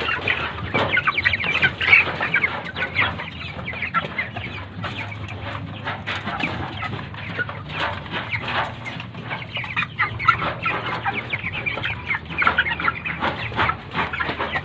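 A flock of 45-day-old broiler chickens clucking and calling continuously, in many short overlapping calls.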